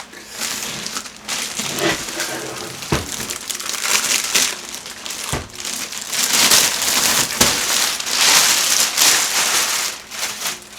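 Packing around a newly unboxed PC case being pulled off and handled: irregular crinkling and rustling, loudest in the second half, with a few dull knocks.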